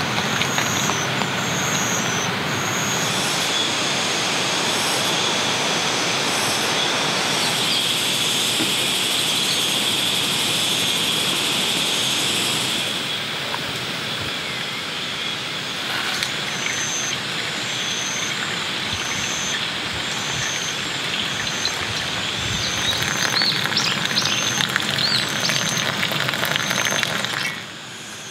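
Steady rain falling on and around a camping shelter, with high chirping from insects or birds repeating at even intervals over it.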